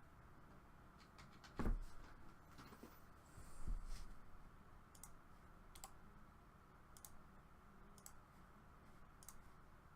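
Faint scattered clicking of a computer mouse and keyboard, with two louder dull thuds just under two seconds in and again around four seconds in.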